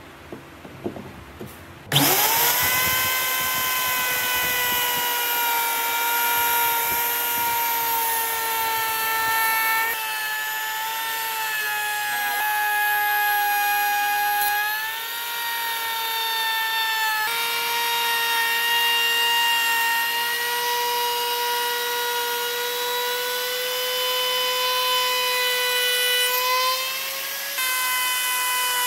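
A few light clicks of a chisel on wood, then about two seconds in a handheld electric router spins up and runs with a steady high whine. Its pitch sags slightly in places as the bit cuts a profile into the curved wooden edge.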